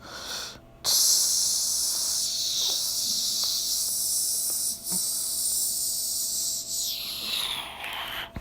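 A long, steady hiss that starts about a second in, holds for several seconds and fades away near the end.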